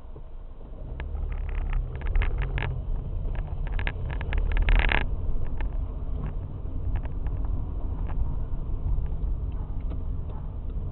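Car brakes squealing in short repeated bursts, thickest and loudest about four to five seconds in, with scattered single squeaks afterwards, over the low rumble of the car.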